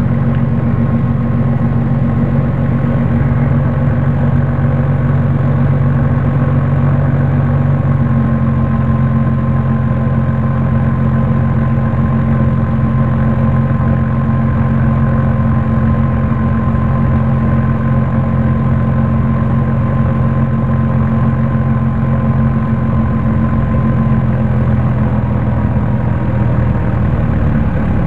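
Rotax 503 two-stroke twin engine of a light experimental aircraft running steadily at low power on final approach. The engine note drops slightly near the end.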